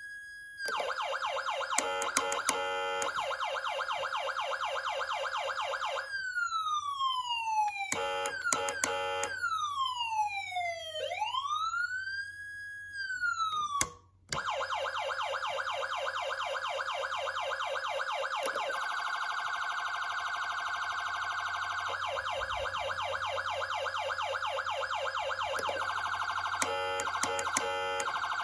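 Federal Signal Unitrol Touchmaster Delta electronic siren switching through its tones. A slow rise-and-fall sweep and several falling glides are interleaved with long stretches of fast-chopping warble and short choppy bursts. The siren cuts out briefly about halfway through before a faster warble starts.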